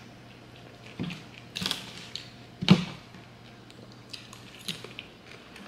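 Metal forks clinking and scraping against ceramic plates while eating: a handful of light, separate clinks, the loudest a little under halfway through.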